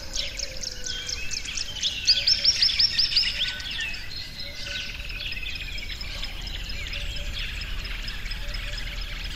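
Small songbirds chirping and singing: a fast run of high, downward-sweeping notes in the first three seconds or so, then softer, more varied twittering.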